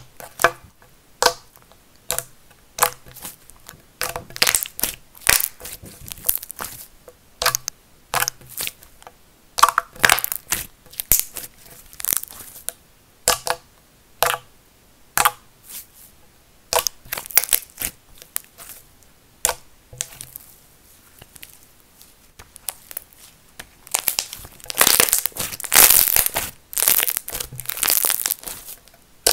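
Slime being poked in its tub and then pressed and kneaded by hand, giving sharp clicking and crackling pops. Near the end the crackling comes thick and fast as the slime is squeezed between both hands.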